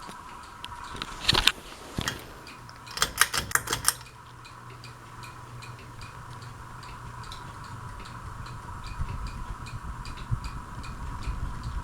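Hunter Coastal Breeze Plus ceiling fan running with a low motor hum and a steady rhythmic ticking, a few ticks a second. Two sharp clicks come in the first two seconds, then a quick run of clicks around three seconds in.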